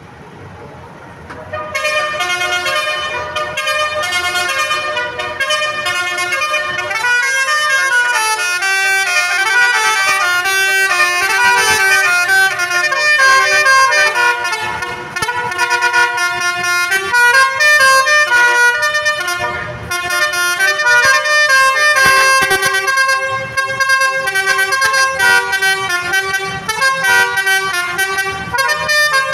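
Bus 'telolet' Basuri multi-tone air horn playing a melody of quickly changing notes. It starts loud about two seconds in and keeps stepping through the tune.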